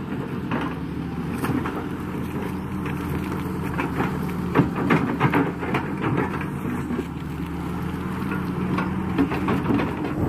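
Kato crawler excavator's diesel engine running steadily under load as it digs wet mud, with irregular knocks and clatters from the bucket and boom working.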